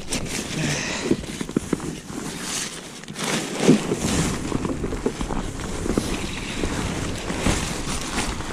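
Nylon tent fabric and its stuff sack rustling and crinkling as gloved hands pull the tent out and open it, with scattered small knocks and clicks.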